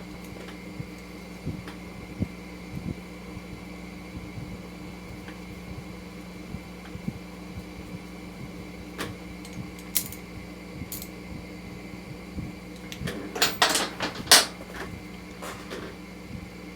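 Steady hum of a shop fan with scattered light clicks of hand tools and bolts, and a quick cluster of louder metallic clicks and knocks near the end.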